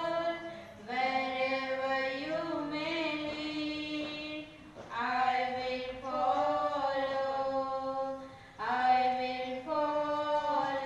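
Women singing a hymn together, slow phrases of long held notes with short breaks between them.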